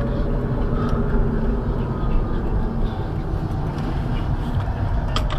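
Steady road and tyre rumble with engine hum inside a moving car's cabin. A short click near the end.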